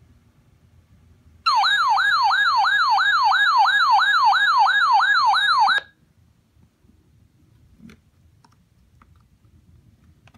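Electronic siren-like alert tone wailing fast, each sweep rising and then dropping back, about three times a second. It starts about a second and a half in and cuts off suddenly after about four seconds.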